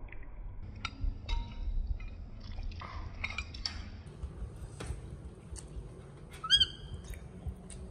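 A metal fork clicking and clinking against a plate as a baby monkey is helped to eat, with one short high-pitched squeak from the monkey about six and a half seconds in, the loudest sound.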